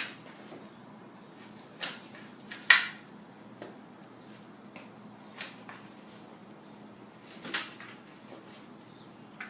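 Several light knocks and clicks at irregular intervals, the loudest a little under three seconds in, over a faint steady hum.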